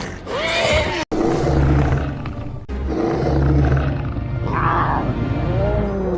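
Dramatic film music with an animal's roaring, growling calls over it. The sound cuts out abruptly for an instant about a second in.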